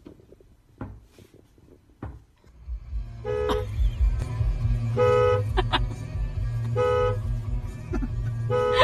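Car horn honking in four short blasts, about two seconds apart, over a low steady rumble.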